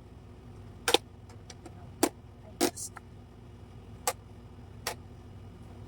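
Sharp plastic clicks and knocks from handling a toy Nerf blaster and its attachments, about five of them spaced irregularly over a low steady hum.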